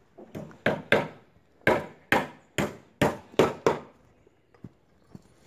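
Footsteps crunching on gravel close to the microphone: about nine sharp, loud steps at roughly two a second, stopping a little after halfway.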